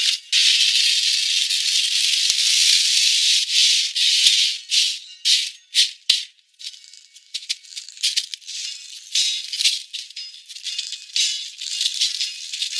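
Crystal cat litter rattling as a cat digs and scratches in it: a continuous rattle for the first four seconds or so, then short, separate scrabbling bursts.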